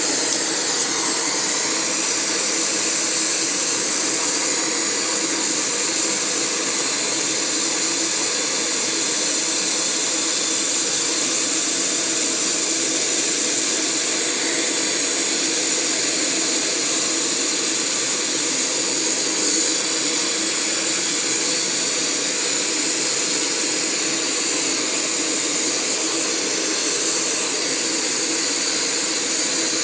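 Optimus Crux canister gas stove burning at full gas: a steady, loud hiss and rush from the burner.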